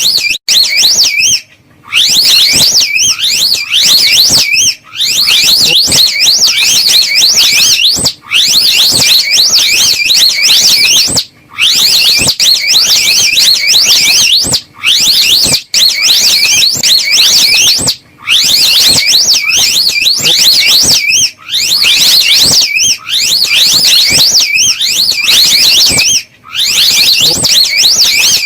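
Slow loris call: a loud, rapid, high-pitched warbling trill that wavers up and down several times a second. It comes in phrases of one to three seconds, repeated with short breaks.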